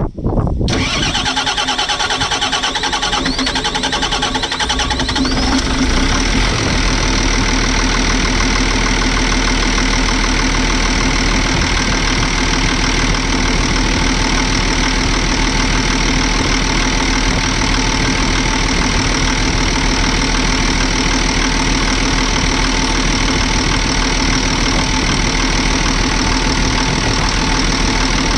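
Volvo EC210 excavator's diesel engine coming on suddenly about half a second in, changing pitch over the next few seconds, then running steadily.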